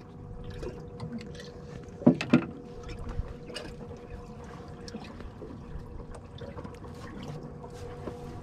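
Two sharp knocks about two seconds in as a fibreglass livewell hatch lid is swung open. Underneath is a steady hum and light trickle of water from the boat's livewell running on the baitfish.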